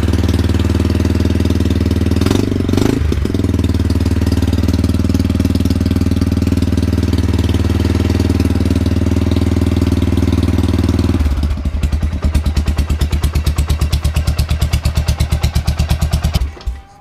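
Buell Blast's single-cylinder engine running on choke, on its first start after a cam swap and a fresh static timing. It runs steadily with a brief wobble a couple of seconds in. About eleven seconds in it settles into a slower, evenly pulsing idle, and it cuts off near the end.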